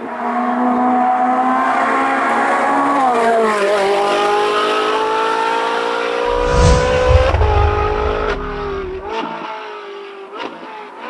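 Ferrari 458 Challenge Evo race car's V8 at high revs, its pitch falling about three seconds in and then climbing steadily as it accelerates. Near the middle a heavy rumble comes in with a few sharp cracks, and the engine note fades away near the end.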